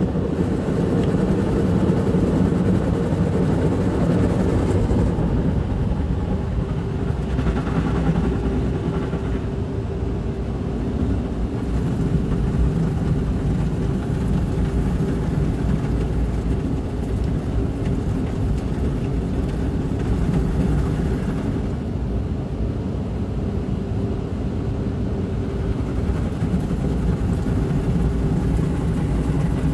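Automatic gantry car-wash machine running its wash-and-dry cycle, heard from inside the car's cabin: a steady mechanical drone with a faint steady hum.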